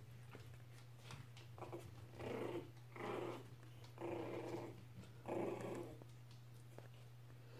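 Norwich Terrier puppies growling in play: four short growls, about a second apart, starting about two seconds in.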